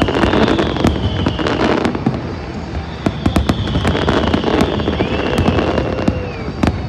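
Fireworks display: many shells bursting and crackling in quick succession, with a rising-and-falling whistle about five seconds in.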